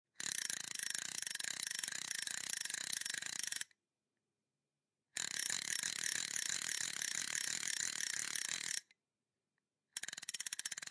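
Fishing spinning reel being cranked, giving fast, even clicking in runs of about three and a half seconds with short silent pauses between; a third run starts near the end.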